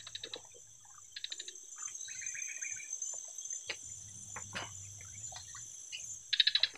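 Swamp insects droning steadily at a high pitch, with bursts of rapid pulsed trilling near the start, about a second in, and loudest near the end, and a short spell of bird-like chirping in the middle. A few knocks and some low rustling come around the middle as a person wades through the water and climbs onto a log.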